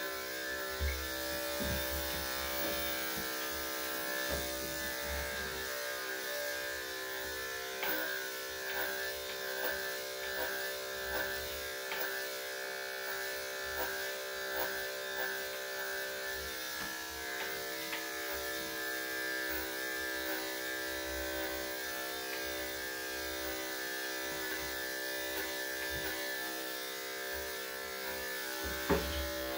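Corded electric dog clippers with a #3/4 blade running with a steady, even buzz while cutting through a curly coat.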